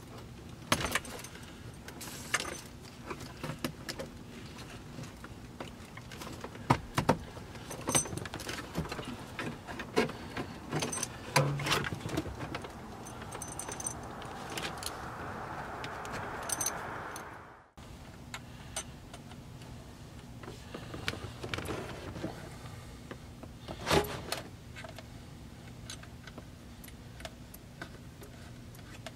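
Hand work on a dash-mounted CB radio install: scattered clicks, clinks and rattles of small metal hardware, a steel mounting bracket and the radio being handled and fitted, with a brief rustling stretch about fifteen seconds in.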